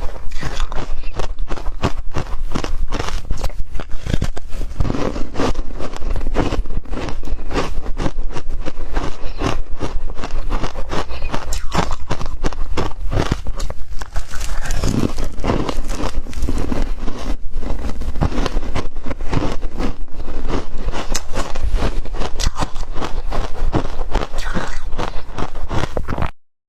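Close-miked crunching and chewing of ice: a dense, continuous run of crackling bites that cuts off abruptly just before the end.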